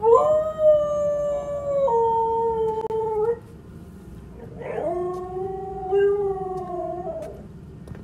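Siberian husky howling: two long howls with a short pause between them. The first holds its pitch, then steps down partway through; the second is lower.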